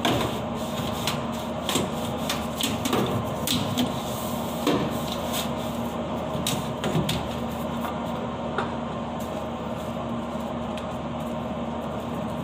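A hand tool scraping and knocking against a metal galley exhaust hood, in irregular clicks and scrapes, over the steady hum of the kitchen ventilation.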